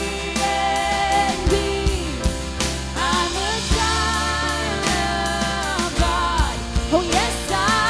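Live worship band playing a contemporary Christian song, with voices singing long held notes over drums, bass and guitar.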